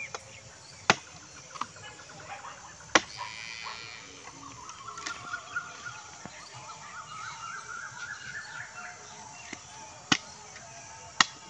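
Sharp cracks of bamboo poles being chopped: two in the first three seconds and two near the end. Birds chirp in the background, with a long run of quick chirps slowly rising in pitch through the middle.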